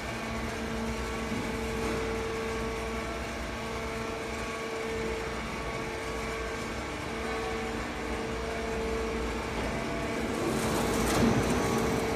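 Sound barrier panel roll forming line running: a steady machine hum with a constant tone, getting a little louder and hissier near the end.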